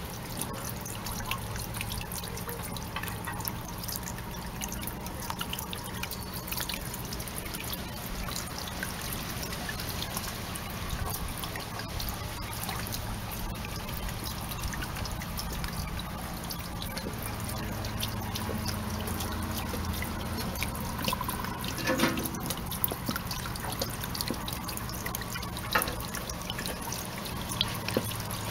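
Water trickling and dripping steadily down a tiered garden fountain made of stacked pots, with many small splashes.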